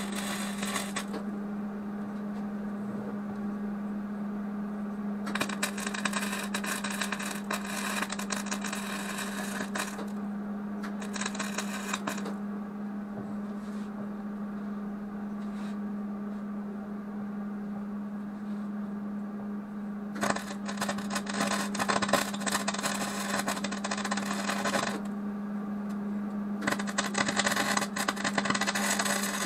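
Wire-feed (MIG-type) welder arc crackling in several bursts a few seconds long as a powder-coated metal air filter housing is tack-welded: one burst ends about a second in, and new ones start around 5, 11, 20 and 27 seconds in. The powder coat was left on, which makes the welding harder. A steady low hum runs underneath.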